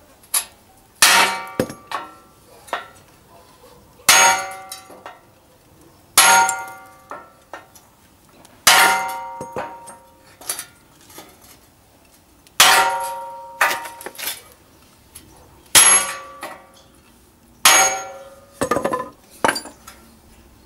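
Sledgehammer blows on the steel tube reinforcement of a UAZ Patriot bumper, struck through a hand hammer held against it as a drift to straighten the bent metal. There are about seven loud, ringing metal clangs every two to four seconds, with lighter taps between them.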